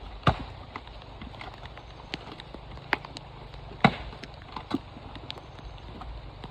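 Coconut shells being struck and cracked: four sharp, hard knocks among many lighter taps and clicks, over a steady hiss.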